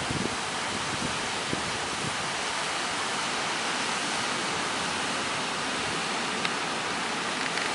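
Steady rushing noise of surf and wind at a sea inlet, an even hiss with no breaks.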